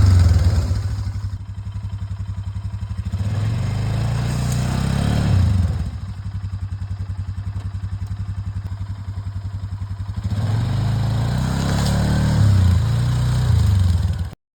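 Polaris Sportsman 500 HO ATV's single-cylinder engine revving up, dropping back twice to a low, evenly pulsing idle, then revving again before cutting off suddenly near the end.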